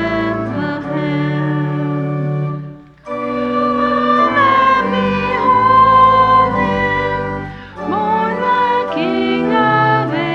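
Congregation singing a Christmas hymn with instrumental accompaniment, held notes in a slow melody, with brief breaths between phrases about three seconds in and near the end.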